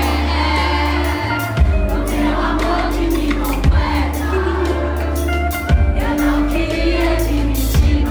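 Live music: a woman singing into a microphone over acoustic guitar and heavy bass, with many voices singing along and a drum hit about every two seconds.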